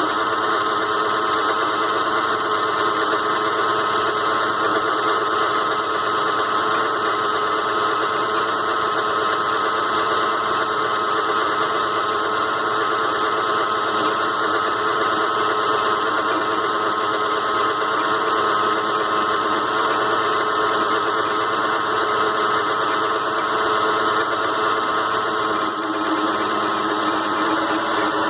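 ZhouYu 6-in-1 mini lathe running steadily, its small DC motor and drive whining while it turns aluminium stock during a light cut to final size. The tone shifts slightly near the end.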